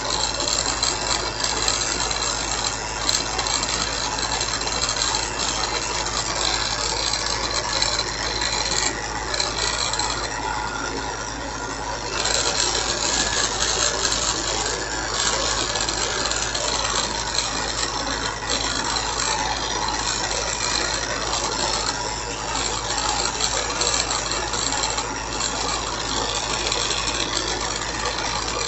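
Bench grinder running steadily while small plastic toy-car wheels are held against the grinding wheel to grind out their insides, a continuous grinding noise over the motor's hum.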